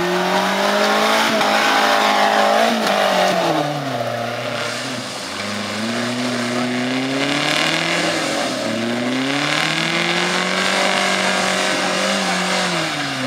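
Suzuki Samurai's engine revving under load in mud: the revs climb and hold, then drop back, three times over.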